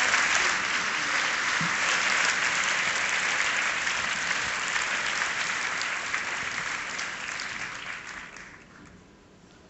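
Audience applauding, the clapping dying away over the last two seconds or so.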